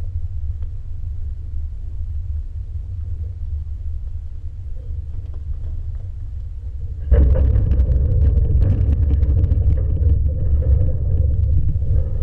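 A steady low rumble of wind buffeting a camera microphone at ground level. About seven seconds in it suddenly gets louder, with a scatter of clicks and knocks over it.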